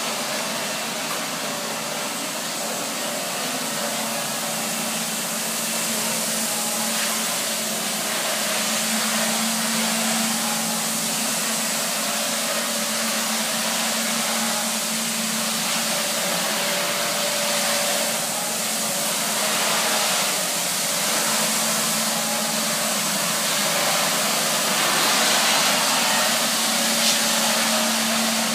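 Nilfisk BA531D walk-behind scrubber dryer running steadily: a constant motor hum under a wide hiss of air.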